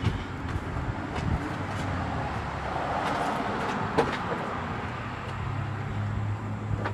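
Subaru flat-four engine cranking on its starter without catching, a no-start after fresh spark plugs, with a sharp click about four seconds in.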